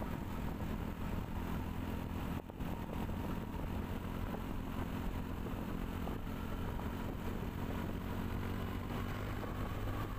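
Steady engine hum and road noise of a vehicle driving along, heard from on board, with a brief drop about two and a half seconds in.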